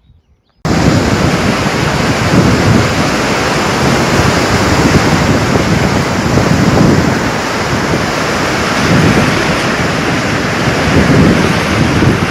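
Storm noise: strong wind buffeting the microphone over a dense, steady roar, swelling in gusts every couple of seconds. It starts abruptly about half a second in.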